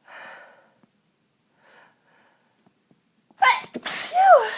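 A woman with a head cold sneezing: two short breaths in, then two loud sneeze bursts close together about three and a half seconds in, the second ending in a falling voiced cry.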